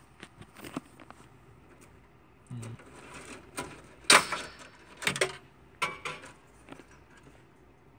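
Power supply cables and plastic multi-pin connectors being handled and pushed into place inside a Power Mac G4 case: a few short clicks and rustles, the loudest about four seconds in.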